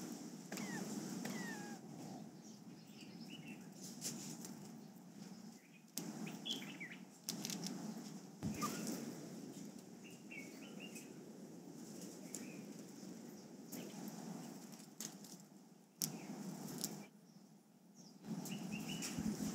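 Dwarf mongooses foraging close by, scratching and rustling in dry leaves and soil with scattered sharp clicks and knocks. Short high chirps come and go throughout.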